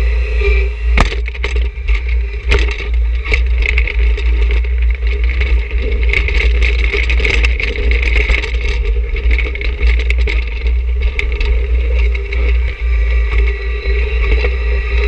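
John Deere 1026R sub-compact tractor running steadily under load while its front-loader snow pusher shoves and scrapes snow, with a steady high whine over the engine and scattered crunches and knocks of snow and ice against the pusher.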